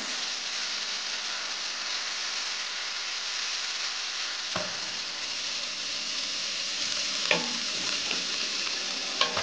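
Chicken pieces sizzling in hot oil in a pan, a steady frying hiss, with three short sharp knocks in the second half.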